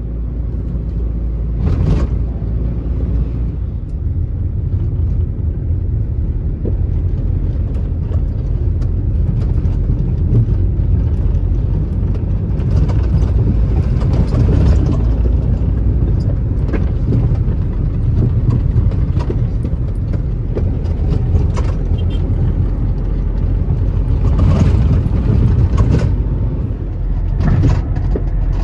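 A car on the move: a steady low rumble of engine and road noise, with a few brief louder swells.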